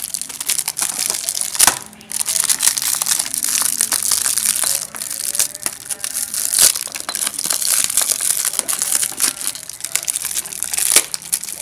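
Clear plastic wrapping crinkling and crackling without a break as hands pull it open.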